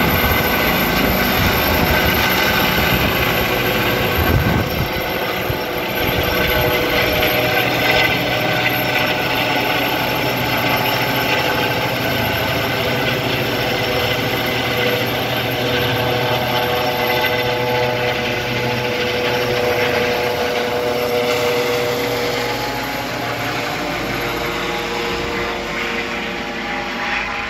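Eurocopter EC135 trauma helicopter flying overhead and climbing away: a steady hum of several held tones over the noise of the rotor, the pitch sliding slightly lower and the sound fading gently near the end.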